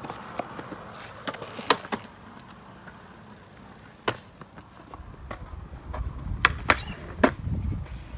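Skateboard on concrete: sharp clacks of the board and its wheels striking the ground, about seven of them scattered through, with a low rumble of rolling in the second half.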